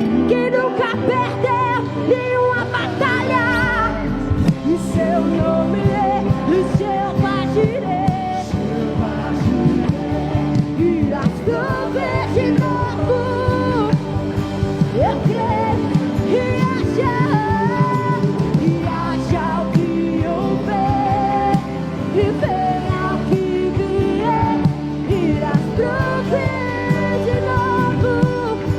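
Contemporary Christian worship music: a singing voice with wavering, held notes over band accompaniment with a steady low bass.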